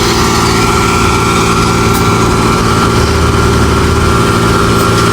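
Engine of a road construction machine running steadily at idle, with an even pitch that neither rises nor falls.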